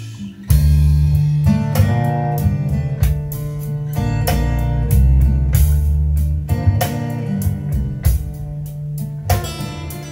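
Instrumental music: plucked guitar over a steady bass line, coming in about half a second in after a brief lull between sung verses.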